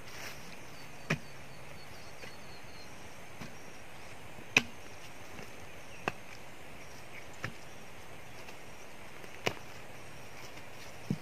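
A hand tool chopping into roots and soil at the base of a tree stump: about six separate strikes, unevenly spaced a second or two apart, the loudest about four and a half seconds in.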